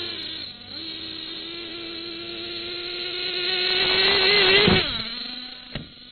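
Small nitro RC buggy engine buzzing at high revs, growing louder, then the revs drop sharply almost five seconds in to a lower idle. A brief knock near the end.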